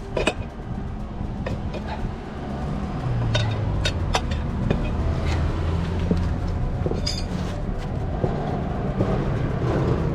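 Background music with held low notes, over scattered sharp clicks and knocks, likely from tools working the tire off the scooter's wheel rim.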